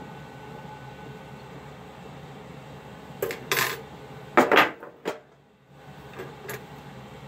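Metal hand tools clinking and clattering on a workbench, a cluster of sharp knocks about three to five seconds in and a few lighter clicks after, over a steady low hum.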